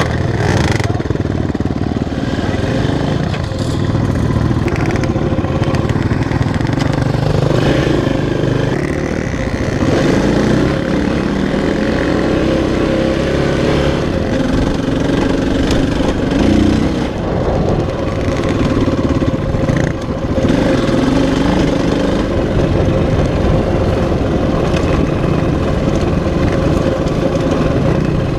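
Dirt bike engine running under load while riding off-road, its pitch rising and falling as the throttle opens and closes.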